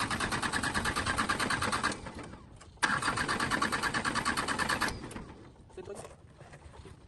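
An engine being cranked by its starter motor in two bursts of rapid, even chatter: the first stops about two seconds in, the second lasts about two seconds. The engine does not catch.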